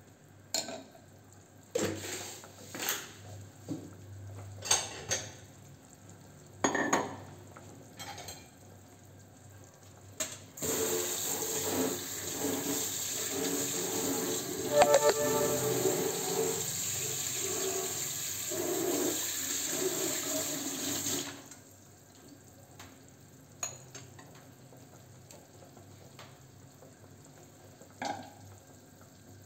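A few light clinks and knocks of pots and utensils, then a kitchen tap running water in a steady rush for about ten seconds before cutting off, followed by a few more faint knocks.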